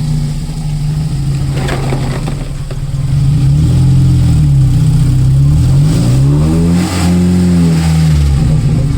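Car engine running and revving, its pitch dropping about four seconds in and climbing again around six to seven seconds in.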